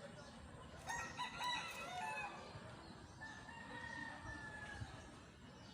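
A rooster crowing, faint: a few short notes about a second in, then one long held note that tails off near the end.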